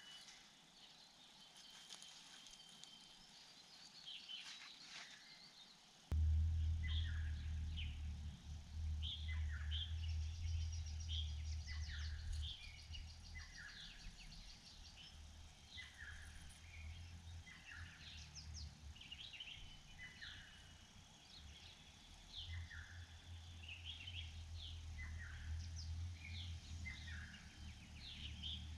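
Small birds calling outdoors, a long series of short, falling chirps repeated about once a second. A low rumble starts suddenly about six seconds in and runs on under the calls.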